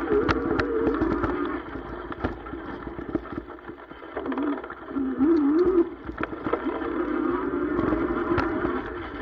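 Cybertrack 100 e-bike riding a bumpy sandy trail: its electric motor whines steadily, the pitch wavering up and down as speed changes, loudest about halfway through. Frequent knocks and rattles come from the bike jolting over the rough ground.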